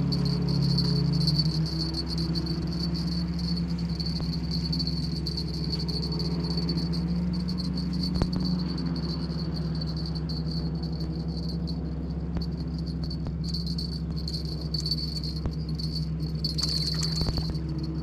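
Insects trilling steadily in a high, even buzz over a low steady hum. Near the end a brief splash as a small fish is pulled from the water.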